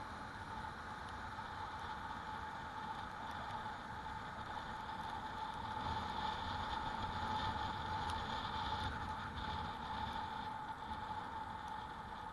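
Riding noise from a moving e-bike: a rush of wind and road noise with a steady high whine, a little louder for a few seconds in the middle.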